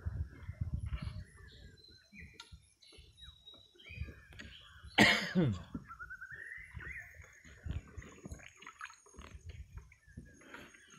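Wild birds and animals calling from the river bank: many short chirps over a steady high insect drone, with one loud call about five seconds in that falls steeply in pitch, followed by a rising whistle-like glide. A low rumble sits under the first second or two.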